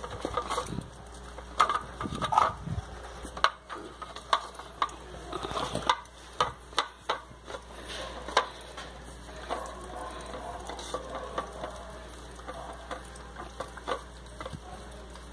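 A dog licking and sucking at an ice cube in a plastic bowl. Wet licking and slurping, broken by many irregular sharp clicks as the ice knocks against the plastic.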